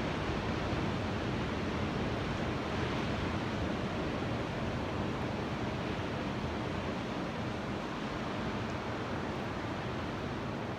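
Ocean surf: a steady, even wash of waves with no distinct breaking crash, easing slightly over the last few seconds.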